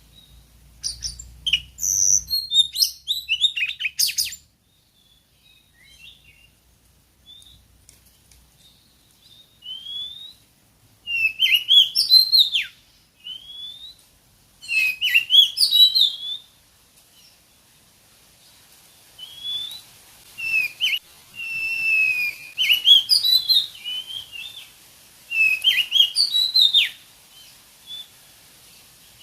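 Oriental magpie-robin (kacer) singing in short groups of quick chirps and clear whistled notes, with pauses of a few seconds between them.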